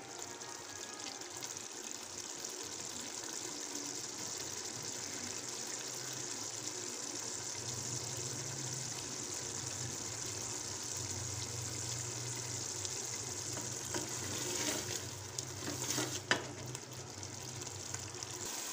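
Minced meat sizzling steadily as it fries in oil and ghee in an aluminium pressure cooker pot, being browned (bhuna), with a wooden spoon stirring it and knocking a few times near the end.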